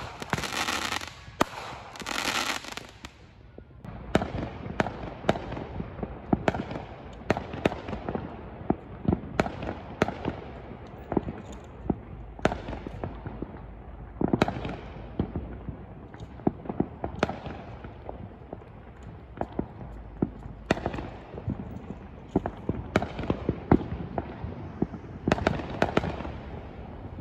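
Aerial fireworks going off from several displays at once: many sharp bangs and pops at irregular intervals over a continuous rumble and crackle. A bright hiss runs for the first two or three seconds.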